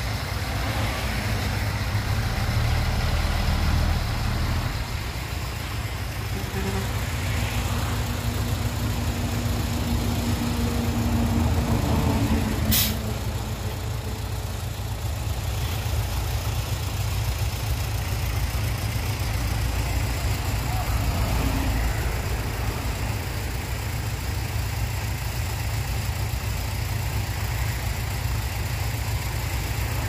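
Small dump truck's diesel engine running at low speed with a steady deep rumble. Its note builds a little from about nine seconds in, then eases off right after a single sharp click at about thirteen seconds.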